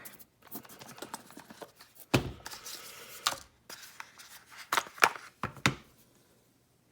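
A small box being opened and its contents handled by hand: a run of light clicks and rustling with several sharper knocks, going quiet near the end.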